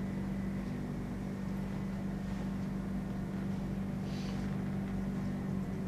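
Steady low room hum with no speech, a faint brief hiss about four seconds in.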